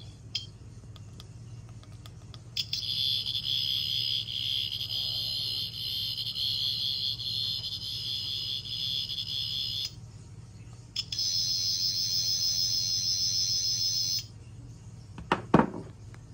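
Sonic screwdriver prop playing its high-pitched, warbling buzz effect, in two runs: a long one of about seven seconds, then, after a short break, a second of about three seconds. A single sharp knock near the end as the prop is laid on the wooden table.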